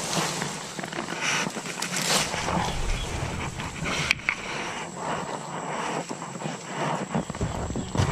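Leaves and twigs rustling and scraping as overhanging riverside bushes are pushed aside from a small boat, with a few knocks.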